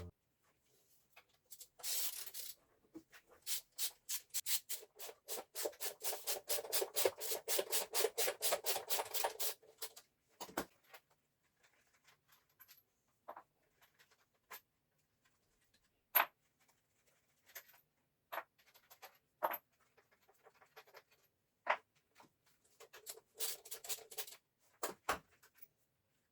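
Rhythmic hand scraping or rubbing strokes on a lathe part, about four a second for several seconds, followed by scattered clicks and knocks as parts are handled, with a brief second burst of strokes near the end.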